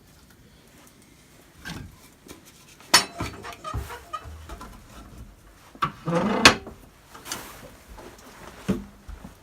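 Clunks and knocks of bags and items being handled as groceries are passed out, with a sharp knock about three seconds in and a louder cluster of clatter and a short pitched sound around six seconds in.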